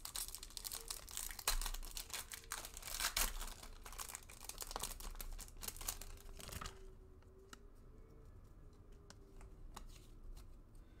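A 2020 Bowman baseball card pack wrapper being torn open and crinkled by hand, a dense crackling for about the first six and a half seconds. After that only a few faint ticks and rustles are heard as the stack of cards is handled.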